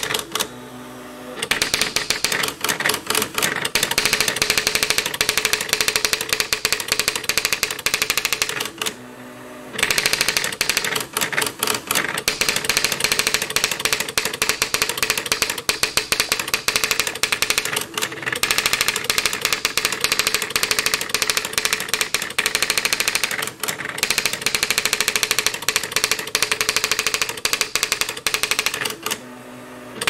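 Olivetti RT 5400 electronic typewriter's print-wheel mechanism hammering out its built-in self-demo text: a fast, unbroken racket of clacks. It pauses briefly, with a low motor whir, about a second in, about nine seconds in and near the end.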